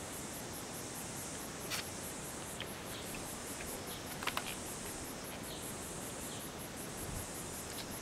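Insects calling in the bush: a steady, high-pitched rapid pulsing, about four or five pulses a second, with a higher hissing buzz that swells in and out in stretches of a second or two. A couple of faint clicks sound about two and four seconds in.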